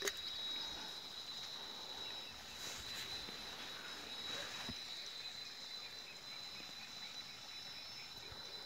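Insects chirring in a steady, high-pitched drone, with a few faint knocks of handling.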